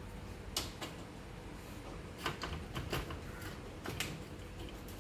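Screwdriver working the screws out of the washing machine's plastic control panel: light, irregular clicks and taps, several in quick pairs.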